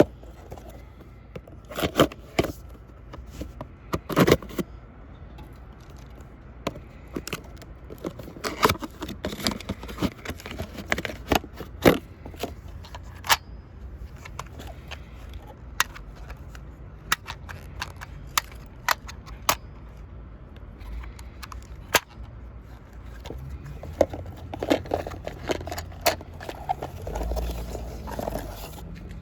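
Irregular clicks, taps and scrapes of a hard plastic dentist teeth game toy being handled, over a low steady hum.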